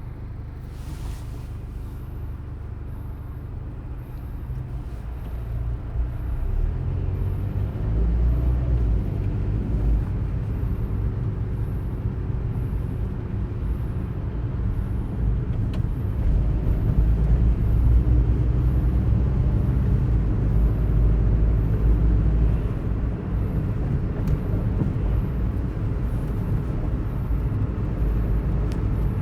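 Low, steady rumble of a moving vehicle, heard from inside. It swells louder twice along the way.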